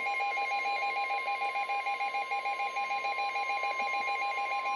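Weather-radio warning alarm: a steady 1050 Hz tone of the kind that comes before a National Weather Service warning message. It sounds under a rapid electronic beeping from an alert receiver.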